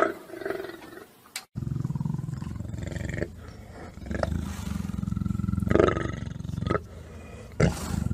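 A lion snarling, which tails off within the first second; then, after a short break, a lion close up giving long, low growls in two stretches of a couple of seconds each.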